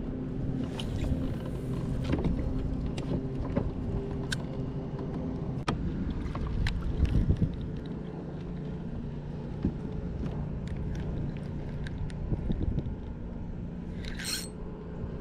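Steady low hum and rumble from a kayak's pedal drive, with scattered light clicks and knocks.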